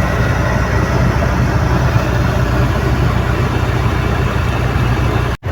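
Heavy truck engine running steadily with a low drone, breaking off for an instant near the end.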